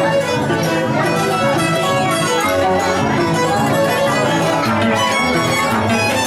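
Violin and Andean harp playing a festive Andean jarana tune together: the bowed violin carries the melody over the harp's plucked chords and bass notes.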